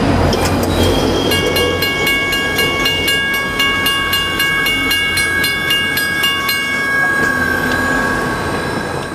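A passenger train running by, a loud steady rumble of wheels and engine. From about a second in until about seven seconds in, a metallic ringing with about four strikes a second sounds over it.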